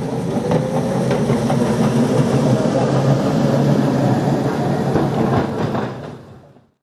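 Newcastle Corporation Tramways No.114 electric tram running along its rails, a steady mechanical hum with the clatter of wheels on track, fading out about six seconds in.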